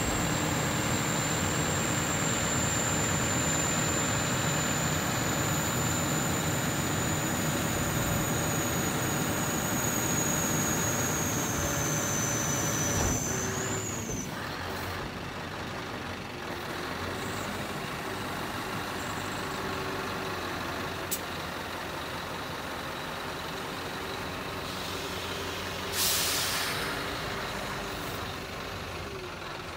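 Scania R620 hooklift truck with its 16-litre V8 running while the hook-lift hydraulics lower a container, a high whine that sags slightly in pitch and stops about halfway through as the lift finishes. Later a short hiss of compressed air is let off.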